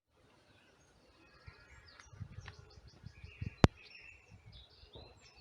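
Outdoor ambience fading in over the first second: small birds chirping and twittering over a low uneven rumble. One sharp click about three and a half seconds in.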